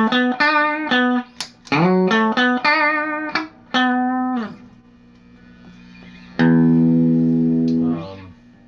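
Electric guitar played through a tube amp and speaker cabinet: a short riff with notes slid up into, played twice, then a chord struck about six and a half seconds in and left to ring before being cut off about a second and a half later.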